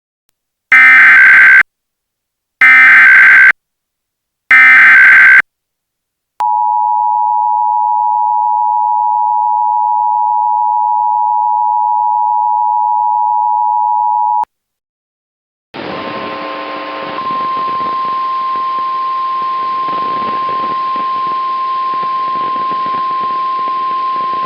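Emergency Alert System warning tones. First come three short screeching bursts of digital header data, then the two-pitch attention tone held for about eight seconds. After a second or so of silence, a single steady alert tone sounds over a hiss of static.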